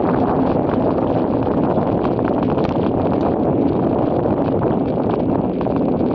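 Wind rushing over the microphone of a camera carried on a moving bicycle, a loud, steady noise.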